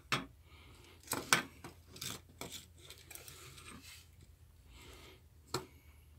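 Handling noises from a small circuit board with long component leads being moved and set down on the bench: a few sharp clicks and light rubbing, the loudest click a little over a second in and another about five and a half seconds in.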